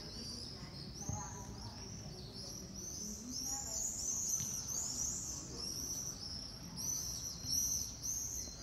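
Common swifts in flight screaming, many shrill, high calls overlapping, swelling loudest about halfway through and again near the end.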